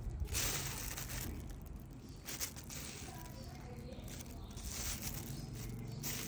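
Clear plastic wrapping on 5-inch firework display shells crinkling in a few short rustles as a hand grips and turns the shells in their mortar tubes, over a low steady hum.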